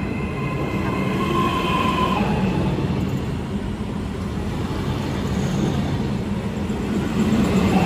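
ETR 421 double-deck electric multiple unit moving slowly past at close range: a steady rumble of wheels on the rails under the whine of its electric traction drive. The whine drops to a lower pitch about two seconds in and climbs again near the end.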